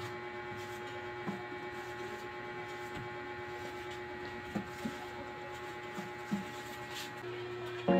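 A steady hum with several soft knocks, as a cloth is wiped over a wooden box and bumps against it.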